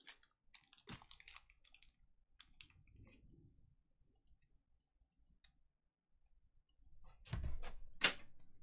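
Scattered light clicks in the first few seconds, then a louder cluster of handling noise and sharp ticks about seven to eight seconds in.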